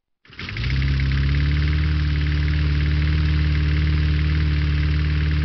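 Large farm tractor engine running at a steady speed. It comes in a moment after the start and holds an even, unchanging pitch.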